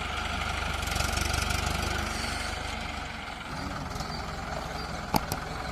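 Mahindra Arjun 555 DI tractor's four-cylinder diesel engine idling steadily, a little louder for a second or so, with two sharp clicks near the end.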